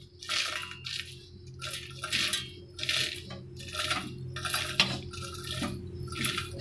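Roasted whole spices and dals (coriander seeds, lentils, dried chillies) being poured into a stainless-steel mixer-grinder jar, the seeds and grains rattling and clinking against the metal in a run of short bursts. A steady low hum lies underneath.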